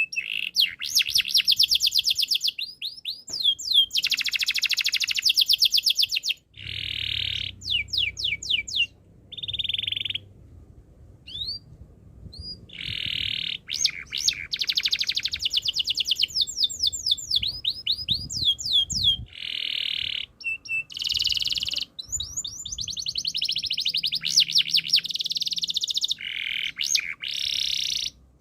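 Domestic canary singing a long song of fast trills, rolls and quick runs of repeated sweeping notes, broken by short pauses.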